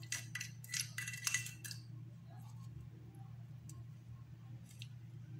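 Metal spoon scraping and clinking against a ceramic dish while stirring a thick salt-and-Vaseline paste: a quick run of scrapes in the first two seconds, then fainter ones, over a low steady hum.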